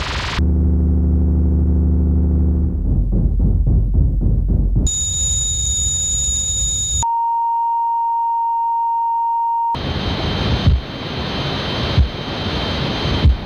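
Sound-design montage of tinnitus-like noises, changing abruptly every two or three seconds. It goes from a low buzzing hum to a rumble, then to a high-pitched ringing tone, then a steady pure beep-like tone. It ends in a hiss with a faint high whistle, broken by a few sharp thumps near the end.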